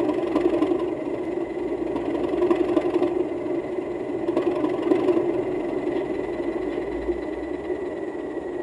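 Recorded locomotive engine sound from a DCC sound decoder, running steadily through a small O gauge model-railway speaker, with a thin steady high whine throughout.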